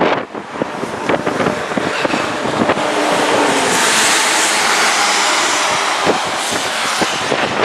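A road vehicle passing on wet pavement: tyre hiss and engine noise swell to a peak about four seconds in, then fade.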